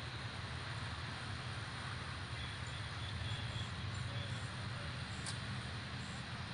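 Steady low rumble of idling vehicle engines under an even hiss.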